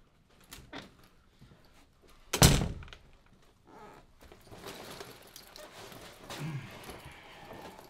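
A single heavy thud about two and a half seconds in, followed by softer rustling of movement.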